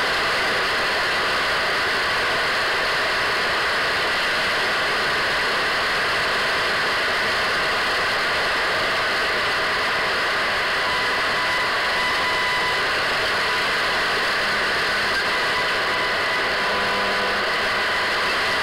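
Radio static: a steady hiss with faint whistling tones running through it.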